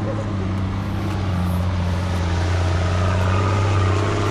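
Engine of a 4x4 off-road vehicle running steadily as a deep, even drone, getting a little louder near the end.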